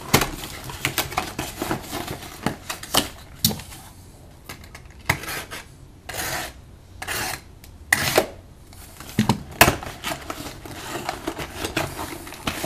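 Trading card box being handled and opened by hand: scattered clicks, taps and crinkles of cardboard and wrapping, with longer rustling swishes about six and seven seconds in.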